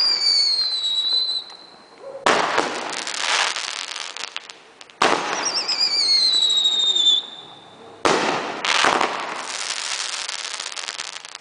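A fireworks battery of 2-inch chrysanthemum shells firing: three sudden bangs about three seconds apart, each followed by a couple of seconds of dense hissing. Whistles falling in pitch twice, near the start and after the second bang.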